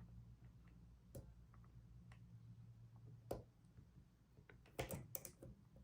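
Faint, scattered clicks of a lock pick moving against the pin stacks inside a six-pin Yale euro cylinder, with sharper ticks about a second in, just past three seconds, and near the end.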